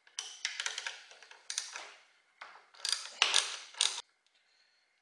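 Ratchet wrench with a 12 mm socket clicking in several bursts of fast clicks as it works the bolt on a motorcycle exhaust bracket.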